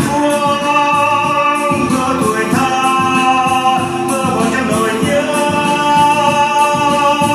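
A singer performing a Vietnamese song over instrumental accompaniment, holding long notes.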